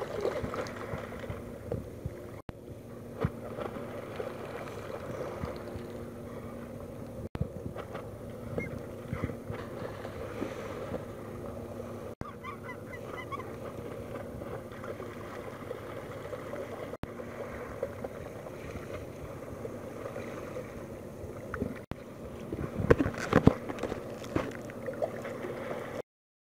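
Seabirds calling in a feeding frenzy over open water, with a few loud knocks near the end.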